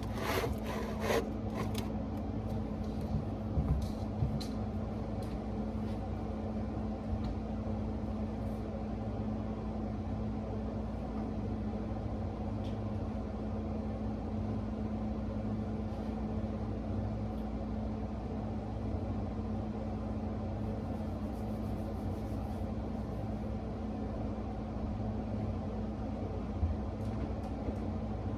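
Steady low mechanical hum with one constant tone, with a few short clicks and knocks in the first few seconds and once more near the end.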